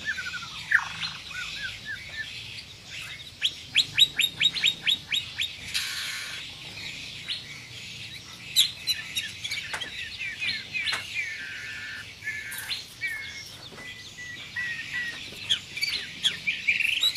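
White-rumped shama (murai batu) singing a varied song of clear whistles and sharp notes. A few seconds in comes a quick, tight run of about a dozen clipped notes, about six a second.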